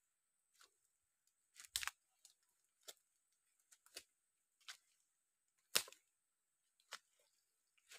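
Footsteps crunching through dry leaf litter on a mangrove forest floor, about one step a second, each a short crackle, the loudest about two seconds and six seconds in.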